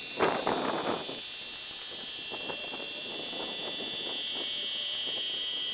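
3D-printed internal gear pump driven by a small brushed DC motor, running with a steady high-pitched whine made of several tones while it pumps water out of the tank. A short, louder burst of noise comes about a quarter second in.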